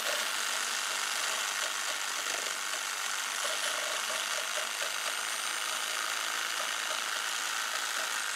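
Electric jigsaw running steadily, its blade cutting into the slot of a wooden saw handle to widen it.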